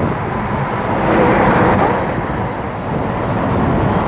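Road traffic, a vehicle driving past, its rushing noise swelling to a peak between one and two seconds in and then easing off.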